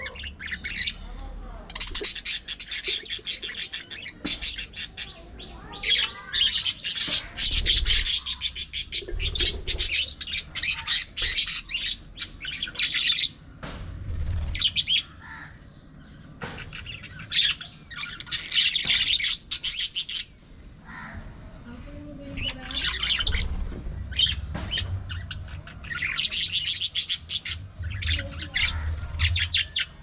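A flock of budgerigars chattering and warbling in rapid high chirps, in bursts with short lulls between them.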